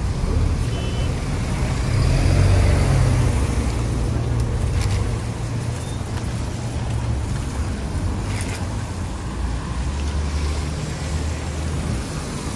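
Slow road traffic on a wet road: queued cars with their engines running, a steady low rumble that swells about two seconds in.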